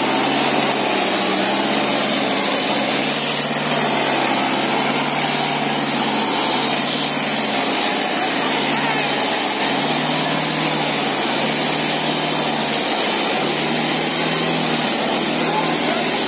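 Sonalika 750 tractor's diesel engine running steadily under heavy load while it drags a disc harrow through dry soil.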